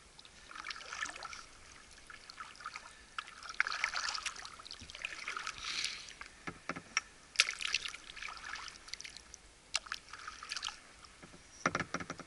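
Kayak paddle strokes in calm water: splashes as the blades dip and pull every couple of seconds, with drips and small sharp clicks in between.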